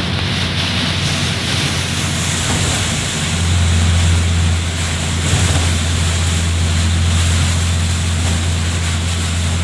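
Heavy rain and strong wind in a storm, a steady rushing noise with a deep low rumble that grows louder about three seconds in.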